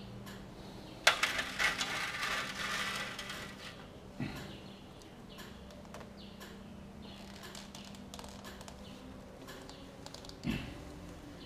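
Metal hand tools on the oil filter of a Honda NC700X engine as the filter is wrenched loose. A sharp metallic click about a second in is followed by a couple of seconds of rapid clicking and scraping, then a few faint clicks and two dull thuds.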